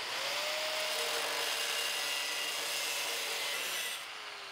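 Angle grinder with a thin cutoff wheel spinning up, then scoring a shallow line along the toe of a weld bead on steel plate, with a steady grinding hiss. About four seconds in the wheel comes off the steel and the motor winds down with a falling whine.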